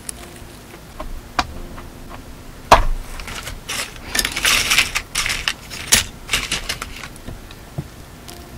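Metal earrings clicking and jingling as they are handled close to the microphone: scattered sharp clicks, the loudest a little under three seconds in, then a busier stretch of clicking and rustling in the middle that thins out.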